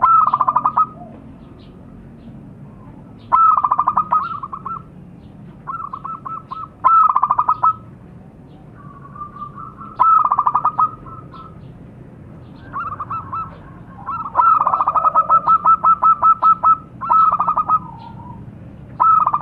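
Zebra dove (perkutut) cooing: about eight bursts of quick, staccato trilled coos, each a second or less, with one longer unbroken run about three-quarters of the way through.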